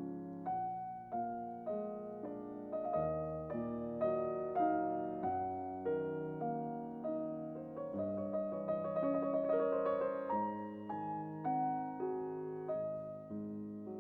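Background piano music: a gentle melody of single notes, about two a second, with a quicker run of notes a little past the middle.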